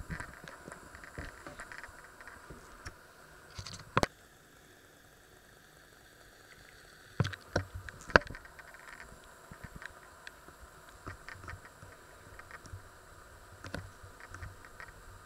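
Scattered small clicks and knocks of handling and kitchen objects, with a sharper knock about four seconds in and a few more around the eight-second mark, over a faint low background hum.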